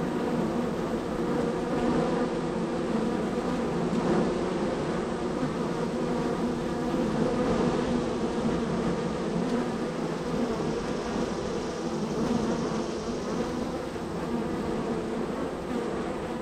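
Honey bees buzzing steadily in a dense swarm of wingbeats at a busy hive entrance, with many bees flying in and out.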